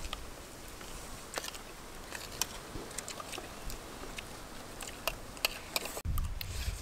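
People eating with metal spoons from china plates: scattered light clicks and clinks of spoons on the plates, with chewing. About six seconds in a low rumble comes in.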